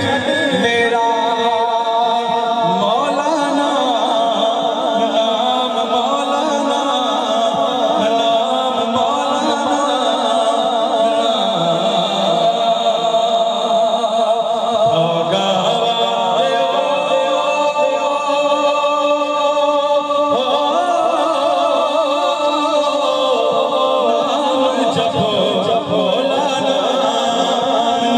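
A man singing a devotional Punjabi naat into a microphone, his voice amplified through a PA loudspeaker, in long wavering, drawn-out notes.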